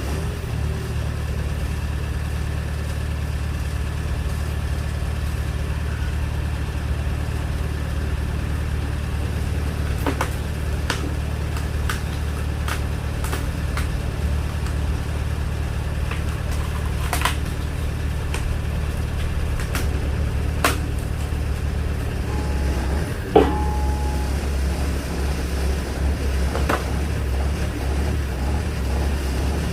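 Engine running steadily to drive the hydraulic log splitter, with scattered metallic clicks and one sharper knock about two-thirds of the way through.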